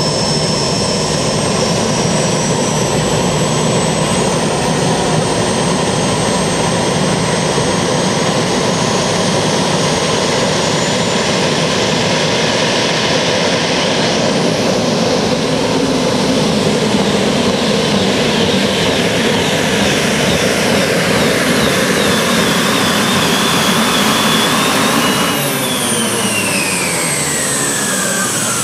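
Modified pulling tractor powered by several gas-turbine engines, running flat out under load with a loud, steady high whine over a dense rush. About 25 seconds in, the whine falls in pitch as the turbines spool down at the end of the pull.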